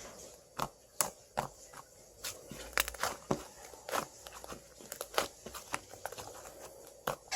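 Slime being squeezed and pressed by hand, giving irregular sticky pops and clicks, one to three a second, with a light crackle between them.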